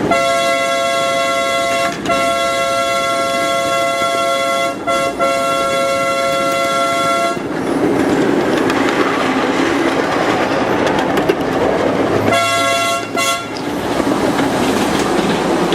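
A miniature railroad locomotive's multi-note chord horn sounds a long blast of about seven seconds, broken by two brief gaps. Several seconds of the train's running rumble follow, then two short toots near the end.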